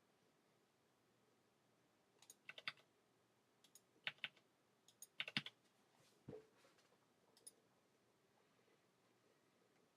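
Computer keyboard typing in three short bursts of a few key clicks each, from about two to five and a half seconds in, followed by a dull knock and later a single click.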